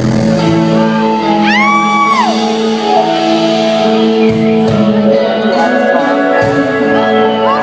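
Live electropop band playing loud through a concert hall's sound system: sustained synthesizer chords, with a high shouted voice rising, holding and falling away about a second and a half in.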